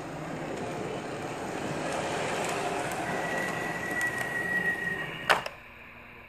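MTH model R-40 subway train rolling along its track toward the microphone, its wheels and motor making a steady rumbling run. A steady high squeal lasts about two seconds, then a sharp clack comes about five seconds in, after which the rolling noise drops away.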